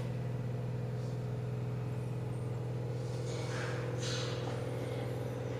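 Steady low mechanical hum with an even, unchanging pitch, and faint soft hissing noises about two thirds of the way through.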